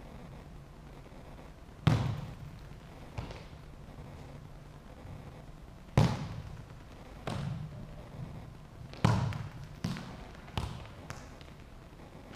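A football kicked hard and thudding on a hard sports-hall floor: about eight sharp knocks, the loudest near two seconds and six seconds, and a quicker run of them from about seven to eleven seconds, each one echoing through the large hall.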